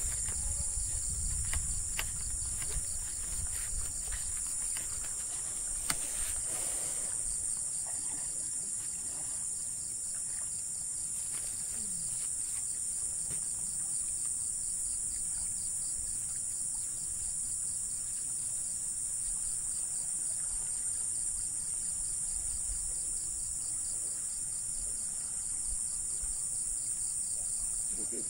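Steady, high-pitched chorus of insects such as crickets or cicadas, with a fine rapid pulsing, sounding throughout. A few faint clicks come in the first several seconds.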